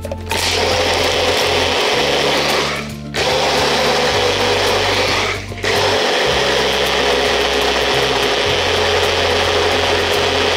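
Personal blender motor running as it blends liquid in its cup, in three runs with short breaks about three and five and a half seconds in. Background music plays underneath.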